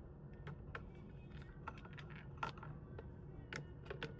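Irregular small plastic clicks and taps from handling and prying apart the CPAP machine's casing and parts during disassembly, a few sharper snaps among them.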